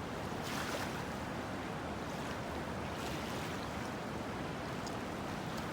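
Steady rushing noise of waves washing in, with wind on the microphone.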